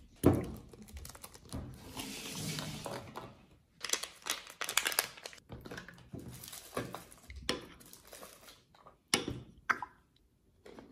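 Handling at the table: plastic packaging crinkling and tearing over the first few seconds, then a metal spoon clinking and scraping in a ceramic bowl of jelly dessert, with a few short knocks.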